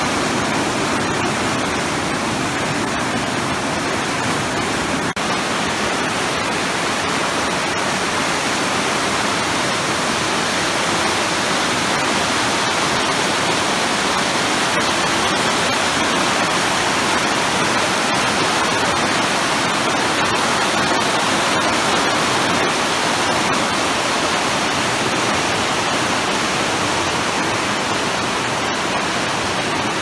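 Mountain river rushing over rocks in white-water rapids: a steady, even rush of water.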